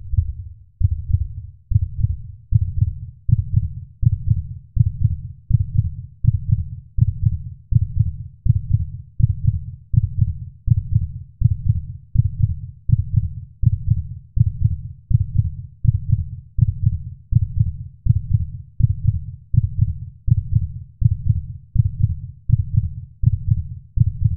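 Heartbeat sound effect: deep, low thumps at a steady pace of about one beat a second.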